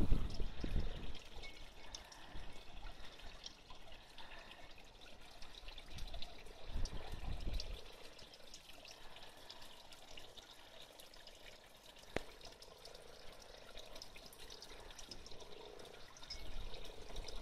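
Water trickling and dripping in a small garden pond, with many small ticks over a steady hiss. Low rumbles come near the start and again about seven seconds in, and there is a single sharp click a little past the middle.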